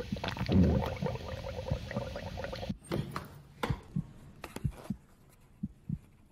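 Music fading out and cutting off a little under three seconds in, followed by a quiet stretch with a few scattered soft footsteps on a hard tiled floor.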